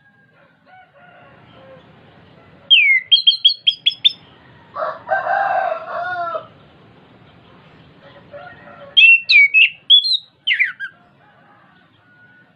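Chestnut-capped thrush (anis kembang) singing: a quick run of sharp whistled notes about three seconds in, and another burst of twisting whistles a little past the middle. Between them comes a lower, drawn-out call about a second and a half long.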